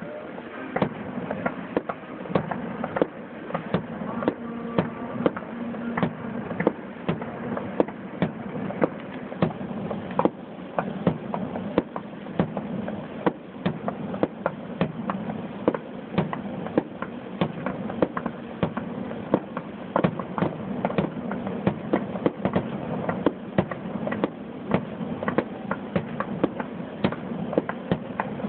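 Aerial fireworks finale: a continuous barrage of shell bursts, several sharp bangs a second over a steady background of crackling noise.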